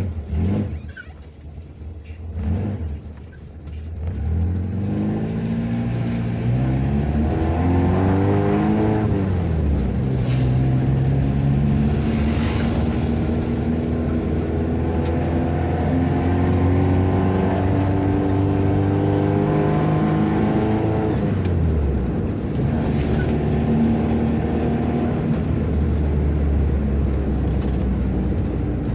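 Mazda MR sedan's engine pulling away on a test drive: quieter with a few knocks for the first few seconds, then rising in pitch, dropping at a gear change about nine seconds in, climbing slowly for some ten seconds, and falling off about twenty-one seconds in before running steadier.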